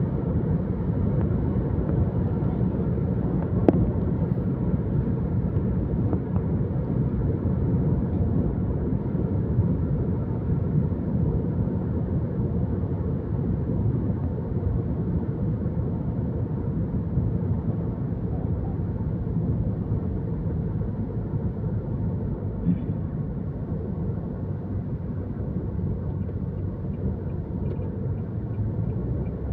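Steady low rumble of a moving vehicle, even throughout, with one short click a little under four seconds in.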